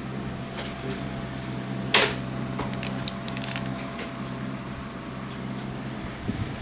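Handling noise on an opened LCD monitor's metal chassis: one sharp click about two seconds in and a few light taps, over a steady hum.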